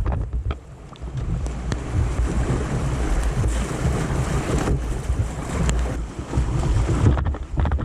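Whitewater rapids rushing and splashing around a kayak as it runs down the river, with low rumbling wind buffeting the microphone.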